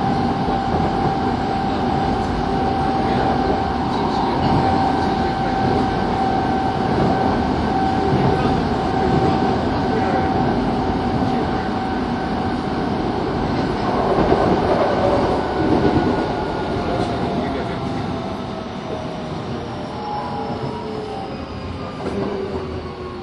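Kobe Municipal Subway 3000 series train running: wheels rumbling on the rails under a steady electric motor whine. From about two-thirds of the way in, the whine's tones slowly fall in pitch and the noise drops as the train brakes toward a station.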